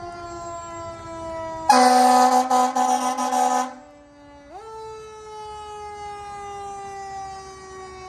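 Fire engine siren slowly winding down in pitch, then spun up quickly about four and a half seconds in and falling away again. Over it, a loud two-second horn blast about two seconds in, the loudest sound here.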